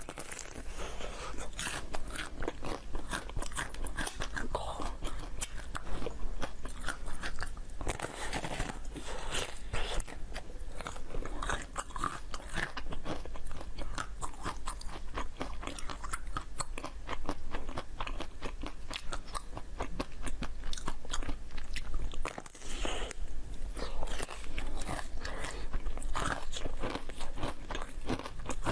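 Close-up crunching and chewing of a large hard-shelled dessert being bitten into, a dense run of crisp cracks. There is a brief pause about three-quarters of the way through.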